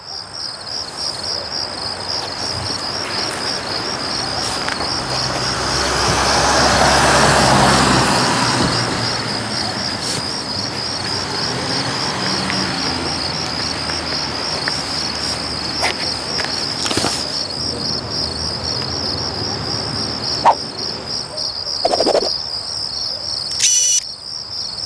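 Crickets chirping steadily in a high, evenly pulsed trill. A broad swell of noise rises and falls about six to eight seconds in, and a few sharp clicks come near the end.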